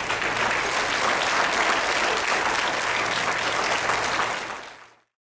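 Audience applauding steadily, fading out about four and a half seconds in.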